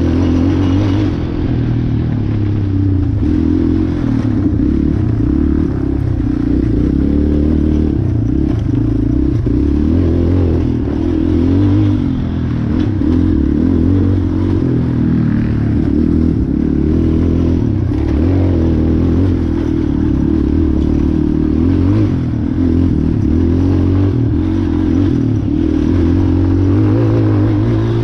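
Race ATV's engine running hard under load, its pitch rising and falling with the throttle through a cross-country race course, with occasional knocks from the machine over rough ground.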